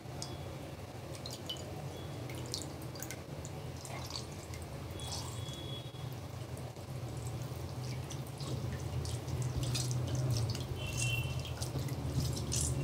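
Water dripping and lightly splashing into a bowl as soft cheese curd is lifted out of cold water and squeezed by hand, with many small irregular drips and plinks. A steady low hum runs underneath.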